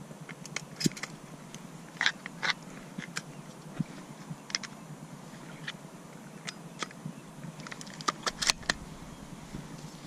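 Dry reed stems crackling and rustling as a hunter shifts among them and handles his shotgun, with scattered sharp clicks, a cluster of them near the end.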